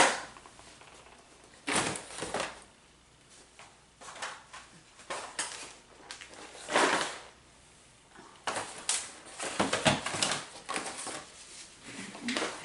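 Intermittent handling noises of small packaged items, boxes and cords being shuffled and set down: short clattering and rustling bursts with quiet gaps, busier in the last few seconds.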